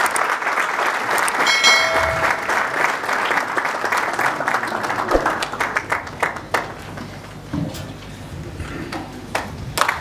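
Audience applauding, dense at first and thinning to scattered individual claps over the last few seconds.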